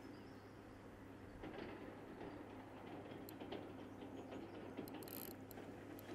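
Fishing reel being wound in while a hooked fish is played on a feeder rod: faint mechanical clicking and whirring of the reel's gears, starting about a second and a half in.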